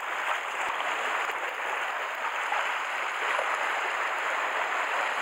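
Sea water washing against the rocky shore: a steady, even hiss of surf with no single wave breaking out.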